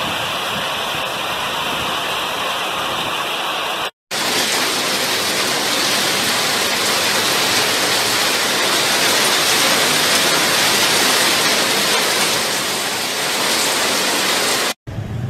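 Heavy rain pouring down in a steady, loud hiss. The sound cuts out for an instant twice, at about four seconds and near the end, where the footage is spliced.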